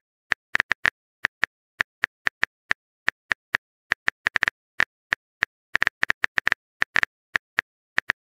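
Phone keyboard typing sound effect: a quick, irregular run of sharp key taps, several a second, with brief pauses, as a text message is typed out.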